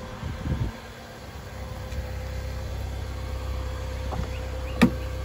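A 1999 Chevrolet Cavalier's 2.2-liter four-cylinder idles steadily shortly after a cold start, running smoothly. There are a few soft thumps early on, and a sharp click of a car door latch near the end.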